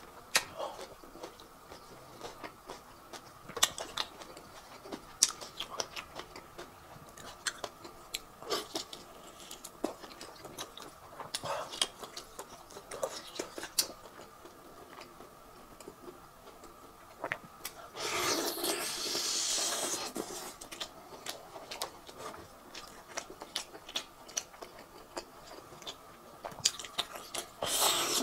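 A person chewing tough braised beef close to the microphone: wet chewing, lip smacks and small sharp clicks at an uneven pace. About two-thirds of the way in comes a louder rush of noise lasting about two seconds.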